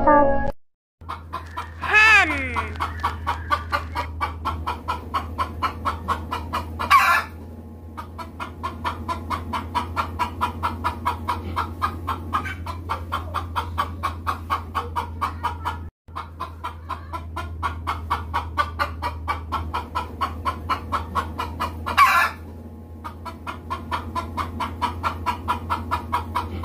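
Hens clucking in a quick, steady run of short clucks, several a second, with a few louder calls standing out, one sliding down in pitch about two seconds in. A low steady hum runs underneath, and the sound drops out briefly just past halfway.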